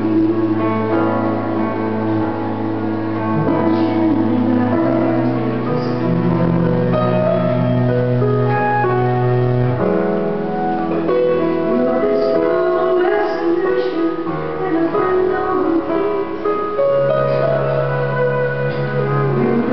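Live music: a woman singing into a microphone, accompanied by an electronic keyboard playing a piano sound and a cello holding long low notes.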